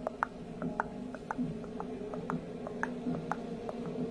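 Light, sharp clicking, roughly in pairs about twice a second, over a steady low hum.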